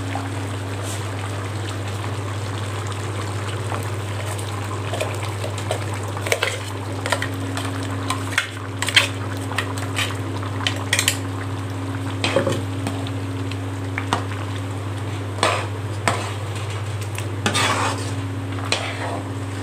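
Slotted metal spatula scraping and clinking against a metal kadai as masala paste is stirred into simmering mutton curry, with the curry sizzling. A steady low hum runs underneath.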